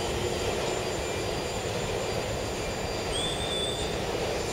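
Electric commuter train pulling away from a station platform, its rumble slowly fading. About three seconds in, a high squeal rises and holds briefly.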